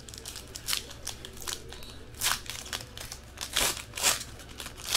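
Foil trading-card pack wrapper crinkling and tearing as it is ripped open by hand, in a series of short rasping rips.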